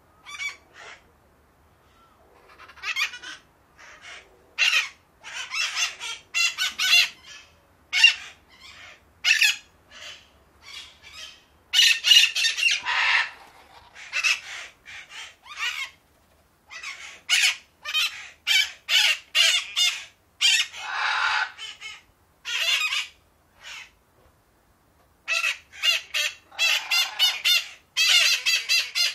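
Parakeets giving harsh, rasping squawks and chirps in rapid volleys with short pauses between them: agitated, angry calling.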